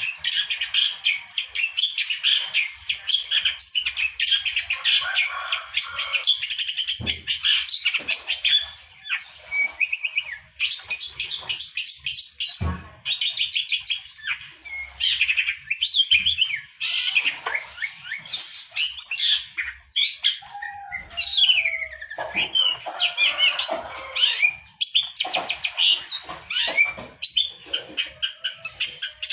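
Long-tailed shrike singing busily in a near-continuous stream of fast, scratchy chattering notes mixed with sliding whistles, the song of a bird in full, active voice.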